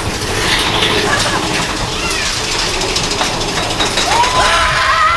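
Thunder Mountain mine-train roller coaster cars rumbling and rattling along the track, with riders' brief yells; a long held scream starts about four seconds in.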